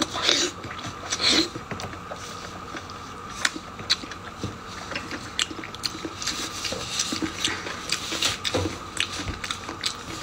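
Close-up chewing and biting of stuffed pork-skin rolls, with scattered wet mouth clicks.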